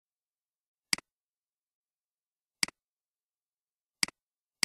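Computer mouse clicking four times over dead silence, each click a sharp double tick of the button pressing and releasing, a second or more apart.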